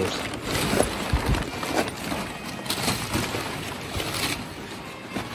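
Crumpled brown kraft packing paper rustling and crinkling irregularly as a dog roots through it, with a few sharper crackles.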